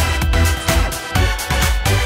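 Electronic dance music with a steady, heavy beat, about two beats a second.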